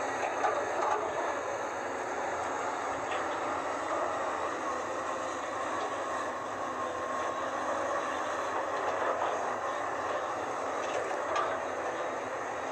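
Komatsu PC200-8 hydraulic excavator working, its diesel engine and hydraulics making a steady, unbroken drone.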